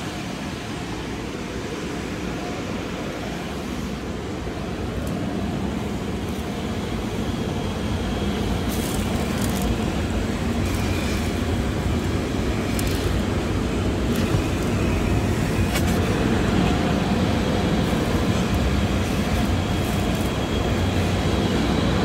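Coin-operated car-wash vacuum running, with a steady rush of suction through the hose as the nozzle is worked over a car's floor. It grows a little louder about a third of the way in, and a few short clicks come through in the middle.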